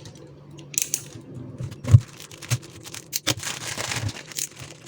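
Plastic wrapping crinkling and tearing as it is pulled off a 7x7 speed cube, with scattered crackles, a few sharp clicks and a louder thump about two seconds in.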